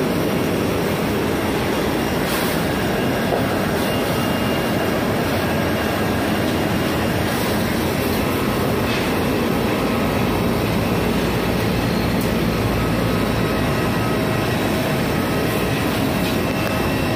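Steady loud roar of airport apron noise from jet aircraft and ground equipment, with faint steady high whines running through it.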